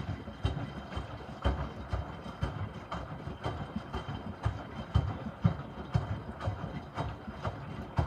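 Miele W2573 front-loading washing machine tumbling a load of wet microfiber cloths in the first rinse: the laundry sloshes and drops in the water-filled drum with soft thuds about twice a second, over a faint steady high whine.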